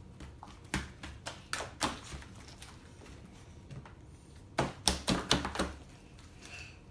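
A series of light, irregular taps and clicks: scattered over the first couple of seconds, then a quicker cluster about four and a half seconds in.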